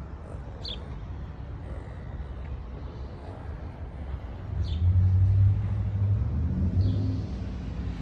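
Low rumble of motor traffic, swelling about halfway through with a steady engine hum as a vehicle passes. Three short, high bird chirps sound over it.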